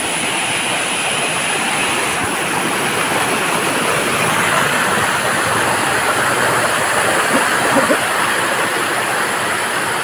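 Water rushing steadily over the boulders of a small rocky stream cascade.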